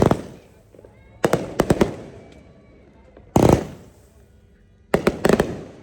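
Fireworks exploding: sharp bangs, some single and some in quick clusters of three or four, every second or two, each trailing off in an echo.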